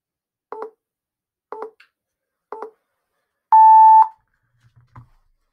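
Countdown timer sounding three short beeps a second apart, then one long, louder steady beep as it reaches zero.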